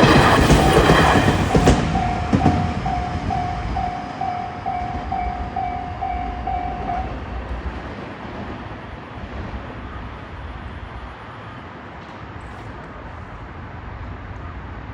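A train passes over a Japanese level crossing, and its rumble fades within the first two seconds. The crossing's warning bell keeps ringing its repeating kan-kan about twice a second, then stops about seven seconds in. Low background hum is left.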